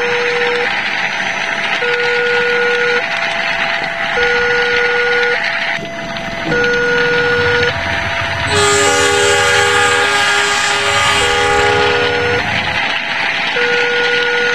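Model railway level-crossing alarm sounding its two-tone warning, the two pitches alternating about once a second, the signal that a train is about to pass. From about 8.5 s to 13 s a multi-note train horn sounds over it as the model locomotive goes by, with a steady rushing noise underneath.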